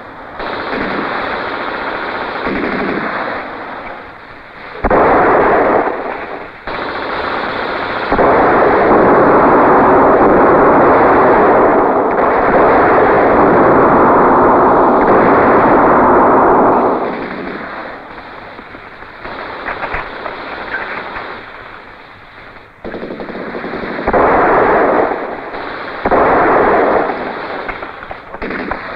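Film soundtrack of dense machine-gun and rifle fire. It is heaviest in one long unbroken stretch through the middle, then comes in shorter bursts near the end.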